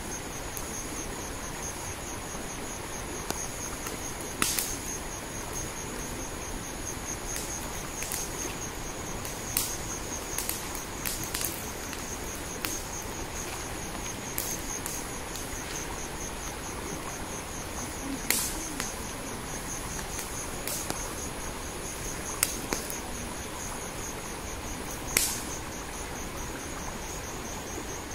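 Insects trilling steadily at a high pitch. A handful of sharp clicks and knocks come and go as a bamboo tube is handled and meat is pushed into it.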